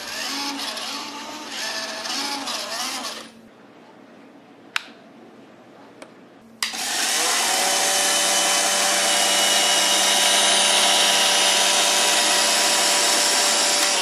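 Roomba robot vacuum's motors whining, the pitch wavering as it manoeuvres, then stopping. After a quiet spell with two sharp clicks, a motor starts suddenly and spins up into a loud, steady whir.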